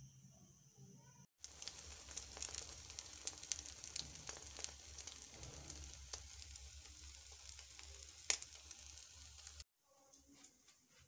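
Eggs frying in a pan, sizzling steadily with many small pops and crackles. The sizzle starts abruptly a little over a second in and cuts off abruptly near the end.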